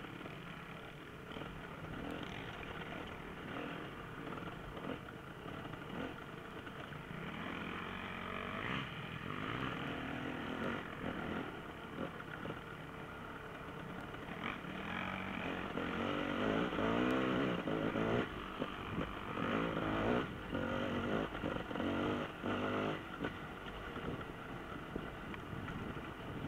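Enduro dirt bike engines running, the revs rising and falling with repeated throttle blips. The revving is loudest about two-thirds of the way through.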